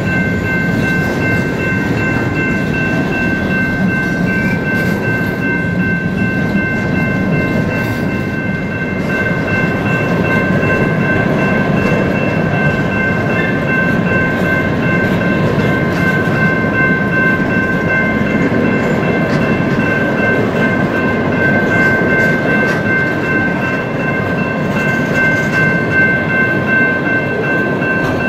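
A train of empty steel ore hopper cars rolling past: a steady, loud rumble of wheels on rail, with several steady high ringing tones over it.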